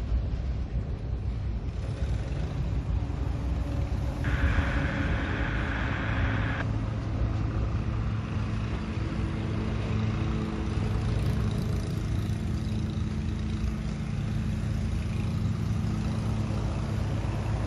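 EMD GP7 diesel-electric locomotive's 16-cylinder 567 engine running with a steady low rumble. About four seconds in, a higher sound joins it for a little over two seconds.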